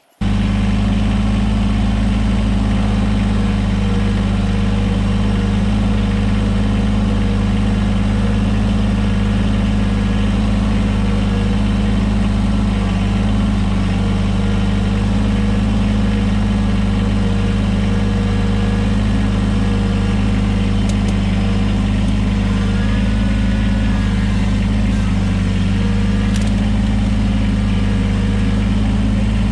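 Kubota BX2380 sub-compact tractor's three-cylinder diesel engine running steadily, heard close up from the driver's seat.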